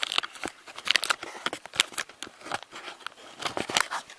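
Headphone packaging being handled: a run of irregular crinkles and sharp clicks.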